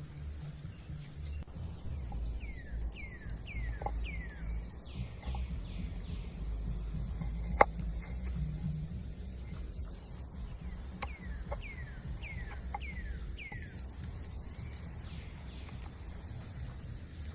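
A bird calling in two runs of about four short, falling whistled notes over a steady high insect drone, with one sharp click about halfway through.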